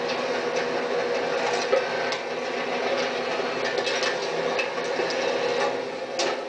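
FAUN Powerpress rear-loader garbage truck's hydraulic packer running a compaction cycle, the engine and hydraulic pump droning steadily. Sharp cracks and snaps come through it as furniture is crushed in the hopper, the loudest one shortly before the end.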